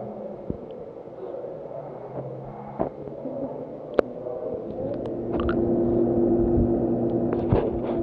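Muffled, rumbling audio of an action camera dipping in and out of pool water, with sharp clicks and knocks. About halfway through, a steady low hum comes in and gets louder.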